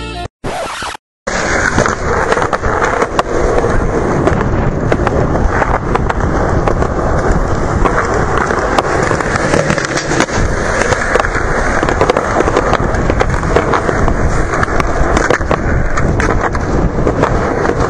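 Skateboard wheels rolling over concrete, a loud continuous rumble with scattered clicks and knocks, starting about a second in.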